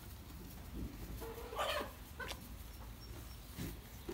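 Baby goat kids jostling and nuzzling close to the microphone in straw bedding. There is a short animal call about a second and a half in, and a couple of softer short sounds later.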